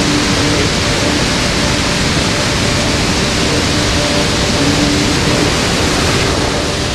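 Amateur high-power solid rocket motor firing on a static test stand: a loud, steady rushing hiss of exhaust through the burn.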